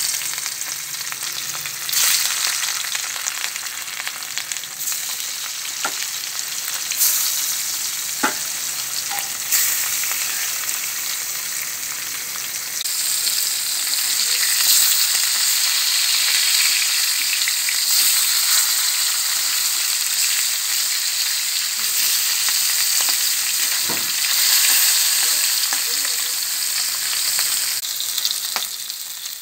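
Pieces of katla fish sizzling steadily as they fry in hot oil in an aluminium kadai, with a few sharp taps of a metal spatula against the pan.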